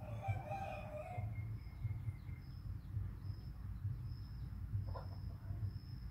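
A bird call about a second long at the start and another brief call about five seconds in, with a thin high whine coming and going over a steady low hum.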